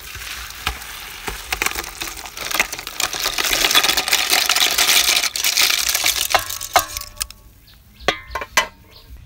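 Tap water pouring onto snails in a plastic colander: a splashing hiss that builds, then stops about seven seconds in, followed by a few sharp clacks.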